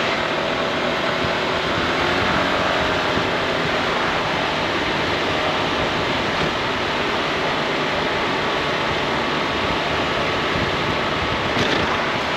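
Steady wind rush and road noise while riding a Honda ADV 350 scooter, with a faint engine hum under it. There is a brief tick near the end.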